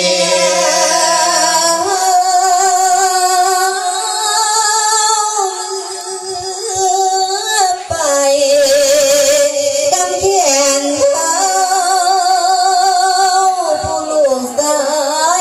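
A monk's voice singing a Thai verse sermon (thet klon) through a microphone and PA loudspeakers, drawn out in long held notes with a wavering vibrato.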